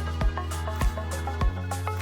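Background music with a steady beat: a kick drum about every 0.6 s over a sustained bass line, with short melodic notes above.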